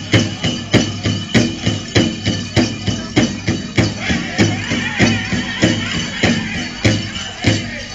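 Powwow drum group playing a chicken dance contest song: a big drum struck in an even beat of about three strikes a second, with the singers' high voices coming in about halfway through.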